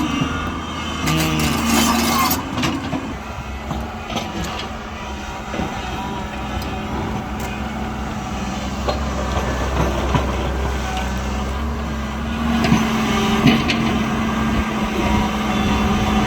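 Diesel engine of a JCB 3DX backhoe loader running steadily while it works, picking up near the end, with a few sharp metal clanks about a second or two in and again later.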